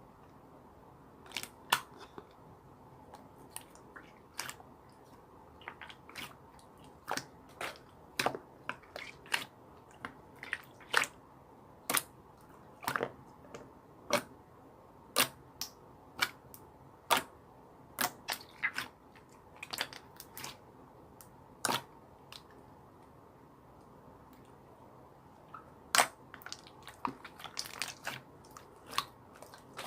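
A series of sharp, short clicks or taps at irregular intervals, roughly one or two a second, pausing for a few seconds about two-thirds of the way through.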